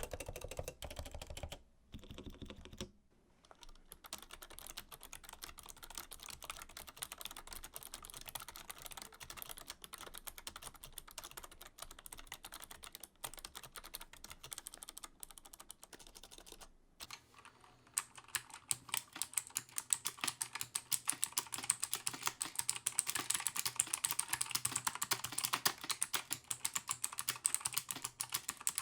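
Typing on mechanical keyboard switches: a rapid, continuous patter of keystrokes. After a short break about 17 seconds in, a different switch takes over with louder, brighter clacks.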